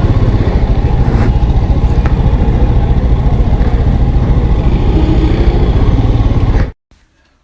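Motorcycle engine running steadily while riding, a loud low rumble with rapid even pulsing, which cuts off suddenly near the end.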